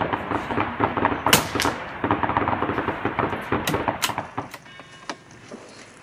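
Rifle shots: several sharp cracks, the four loudest within the first four seconds, over a busy, noisy background. The sound drops away after about four and a half seconds.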